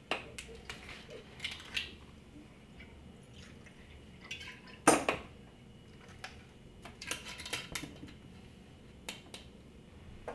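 Glass clinks and knocks as a glass bottle and a shot glass are handled and set down on a table, with one sharp knock about five seconds in and small clusters of clinks later.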